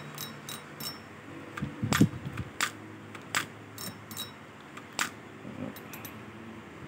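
Spinning fishing reel being handled: irregular sharp metallic clicks and taps, a dozen or so, some with a brief ring.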